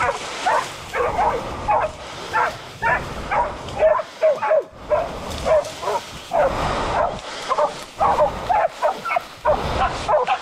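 Pig-hunting bail dogs barking and yelping in a rapid, unbroken run of short calls, several a second: dogs bailing a wounded wild boar.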